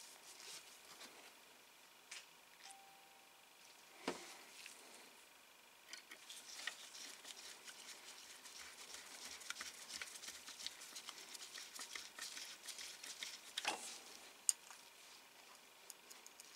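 Small screwdriver driving tiny screws into a scale-model car's body panel: faint, quick scratchy clicking as the screw turns, with a light knock about four seconds in and another near the end, followed by a sharp click.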